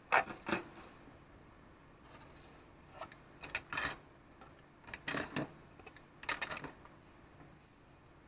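Hardboard pieces and plastic spring clamps being handled and set down on a workbench: four short clusters of light knocks and clatters with quiet in between.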